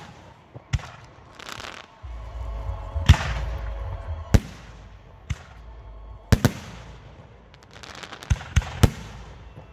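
Aerial firework shells bursting in the sky with sharp bangs at irregular intervals, including a close pair about six seconds in and a quick run of three near the end. Gold crackling stars fizz and crackle after the bursts.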